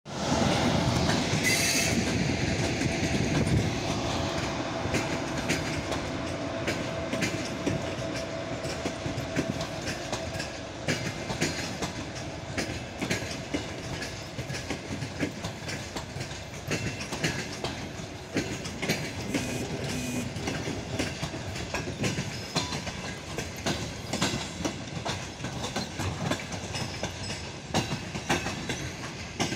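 ChS4 electric locomotive and its passenger coaches rolling past, wheels clacking over rail joints over a continuous rumble. It is loudest in the first few seconds, and a steady hum runs under it for about the first ten seconds.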